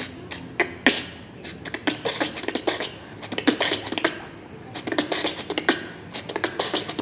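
Beatboxing: a fast run of sharp mouth-made percussive sounds, with short pauses between the runs.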